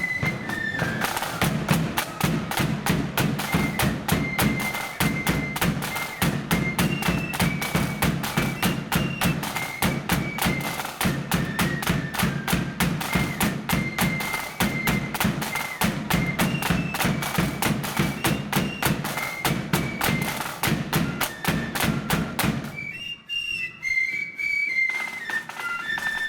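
Blood-and-thunder flute band playing a march: flutes carry the tune over rapid, dense drumming with a heavy bass drum. About 23 seconds in the drums stop and the flutes play on alone briefly.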